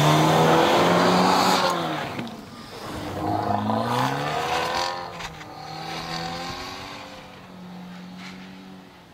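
Dodge Dart's engine revving up and down in several bursts as the car slides around on snow, over a hiss of spinning tyres throwing up snow. It is loudest at first and fades out toward the end.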